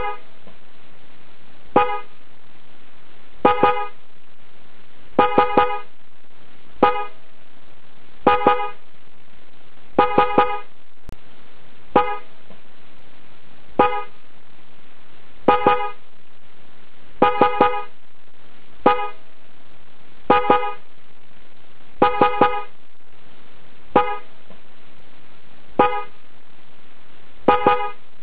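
Genuine Denso horn from a late-model Toyota Celsior (UCF30) sounding in short blasts, single taps and quick runs of two to four, every couple of seconds. Steady background hiss runs underneath.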